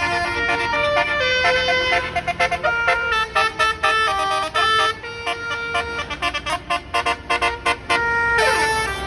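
A bus's Basuri musical horn playing a quick melody of many short, stepping notes, with a falling slide in pitch near the end.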